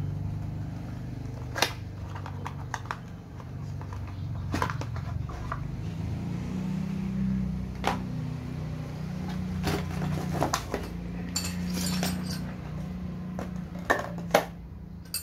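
Handling noise from unpacking: a small cardboard box being turned over and opened, with scattered taps and clicks, then light metal clinks near the end as the drill chuck adapter parts come out. A steady low hum runs underneath.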